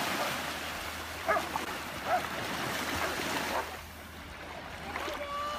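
Gentle sea surf washing at the shore, a steady hiss. A few short faint calls come about one and two seconds in, and a brief held tone comes near the end.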